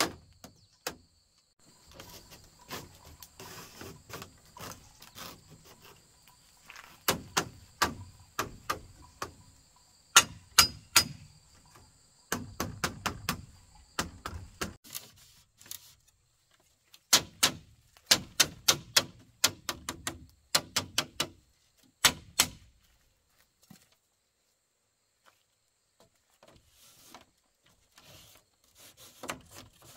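Repeated sharp knocks in quick runs of several strikes, with short pauses between the runs.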